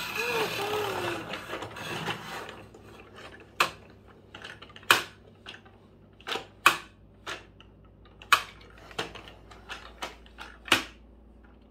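Hard plastic toy skid-steer loader being handled and pushed on a tabletop: a dozen or so sharp, irregular clicks and knocks of plastic parts, spaced roughly half a second to a second apart.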